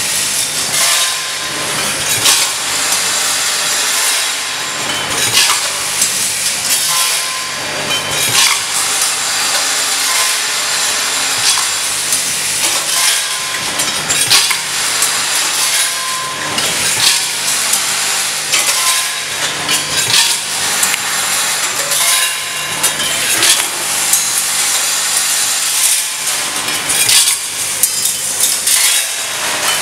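Vibratory bowl feeder packing line running, with conveyor, weigher and bagging machine: a steady low buzzing hum under a continuous rattling hiss of small parts, with frequent sharp clicks.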